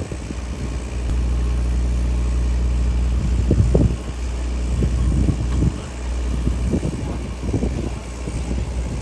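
An engine running steadily with a low hum, with uneven low rumbling over it in the second half.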